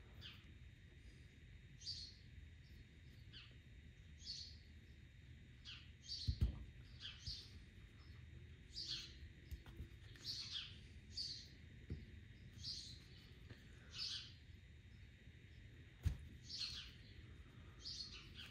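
A bird calling over and over in short, high, falling notes, about one a second. A few soft knocks come from small metal parts being handled on the workbench, the loudest about six seconds in.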